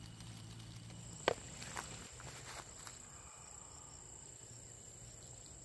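Steady high-pitched trilling of night insects such as crickets, with a low hum dying away in the first second. A sharp click about a second in is the loudest sound, followed by a few softer clicks and rustles of grass stalks being handled.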